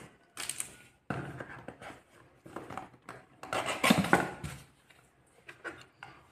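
A cardboard product box being unpacked by hand: its printed paper sleeve scraping and rustling as it is slid off, in irregular bursts, loudest about four seconds in.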